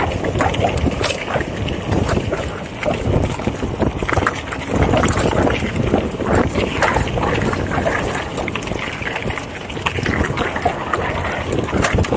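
Mountain bike ridden at speed on a dirt singletrack: wind rushing over the microphone, with the tyres rolling over dirt and rocks and the bike rattling in frequent short knocks.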